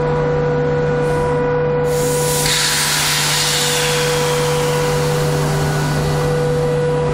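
SS8 electric locomotive humming steadily. About two seconds in, a loud hiss of released air starts suddenly and slowly fades.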